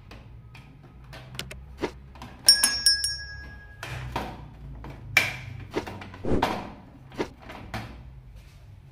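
Irregular plastic clicks and knocks as the control board and its black plastic cover are handled and fitted into a split AC indoor unit's plastic housing. A short bell-like chime sounds about two and a half seconds in.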